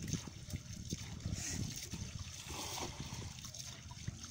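Water dripping and trickling off a wet cast net as it is handled and gathered at the water's edge, with small irregular splashes.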